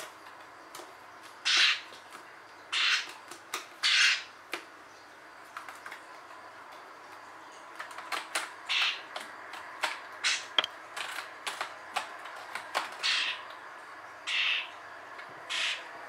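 Young bird giving short harsh calls every second or two, mixed with quick clicks and taps as it pecks and steps across a computer keyboard and desk, the tapping thickest in the middle.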